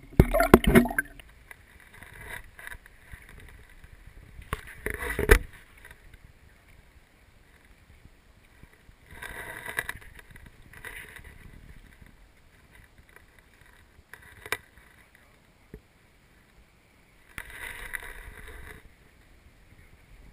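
Water splashing and knocking close to a waterproof camera at the pond's edge: two loud bursts near the start, then a few quieter short splashes and swishes.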